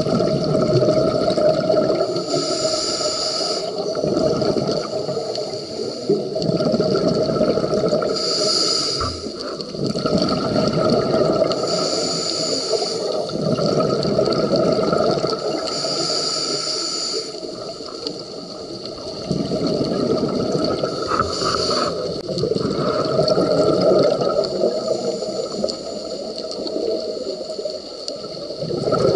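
Scuba diver breathing underwater through a regulator: a short hiss on each inhalation, then a long burst of exhaled bubbles rumbling and gurgling, repeating every four seconds or so.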